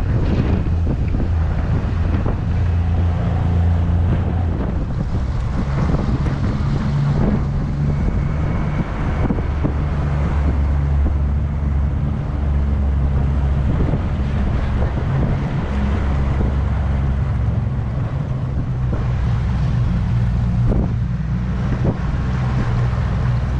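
Outboard motor of a zodiac boat running steadily under way, with wind buffeting the microphone in gusts.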